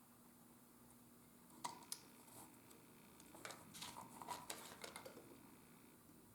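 Small clicks and taps of hand tools and leather being handled at a workbench: two sharp clicks a little under two seconds in, then a quick flurry of light clicks and rustles a second or so later.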